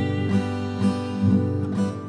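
Acoustic guitar strumming chords of a hymn accompaniment, with a fresh strum about every half second and no voice.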